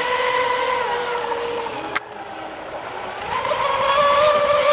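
High-pitched whine of radio-controlled racing boats' electric motors running at speed, with water hiss from the hulls. There is a sharp click about two seconds in, after which it is quieter for a moment, then it grows louder and slightly higher in pitch from about three seconds in.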